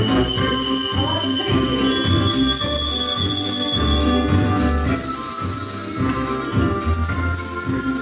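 A group of children ringing colourful handbells: clear bell tones struck in turn and left ringing, over accompaniment music with a steady bass beat.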